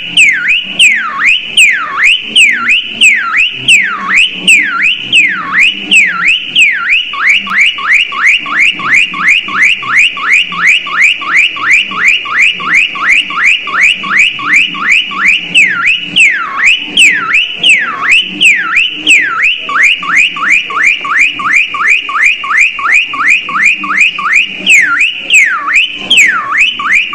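A parrot mimicking a car alarm: a loud whistled siren sweeping up and down, switching between slow whoops and a rapid warble, back and forth several times.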